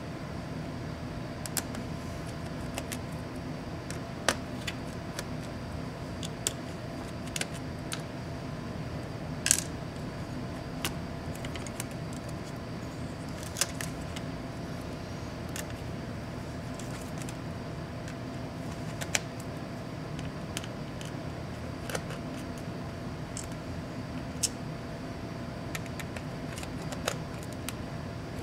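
Scattered small clicks and taps as an MSI GE76 Raider laptop's internal parts (screws, small circuit boards, plastic and metal pieces) are handled and set down during disassembly, over a steady low hum.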